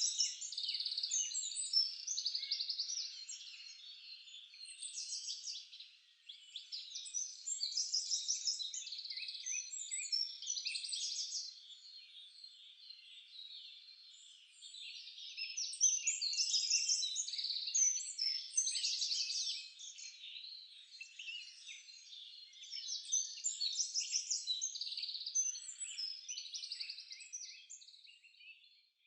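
Songbirds singing, a busy mix of quick chirps and trills coming in phrases of a few seconds, with short lulls between them.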